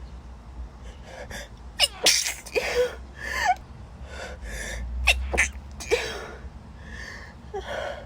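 A woman sneezing repeatedly in a fit, several sharp sneezes in a row with quick gasping inhales between them; the loudest comes about two seconds in.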